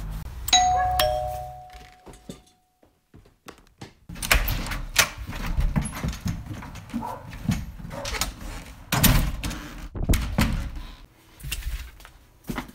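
Two-note ding-dong doorbell chime, a higher note then a lower one, fading out over about two seconds. After a short pause comes a run of irregular footsteps, knocks and cardboard handling as a parcel is carried in and set down.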